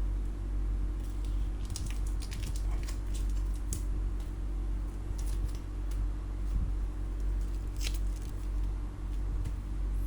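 A steady low hum with a series of light clicks and crackles from something being handled, the sharpest click near the end.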